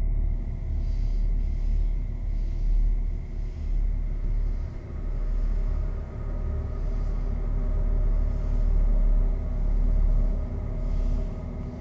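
Dark ambient drone: a deep, steady rumble with sustained tones held underneath, unbroken throughout.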